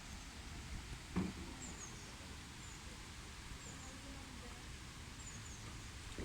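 Steady hiss of rain, with a few faint, high, short bird chirps and a single thump about a second in.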